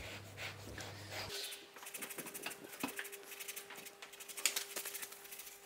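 Orange peel being grated on a fine steel rasp grater: quiet, irregular scraping strokes as the fruit is drawn over the blade.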